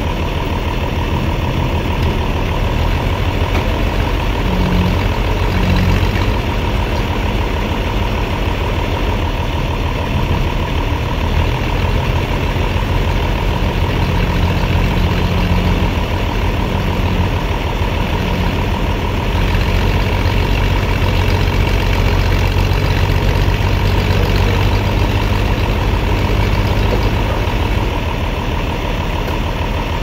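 A Toyota forklift's engine running at low revs under load, a little louder in spells, as its forks push a heavy log into place.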